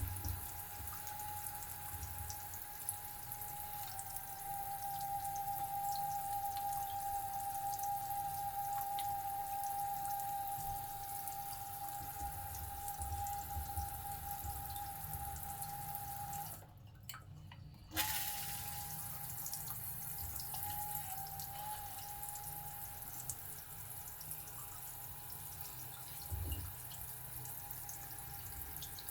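Shower water running and dripping, with a steady high-pitched whine coming from the LED digital shower temperature display. The water and the whine break off for about a second about two-thirds of the way through, then carry on.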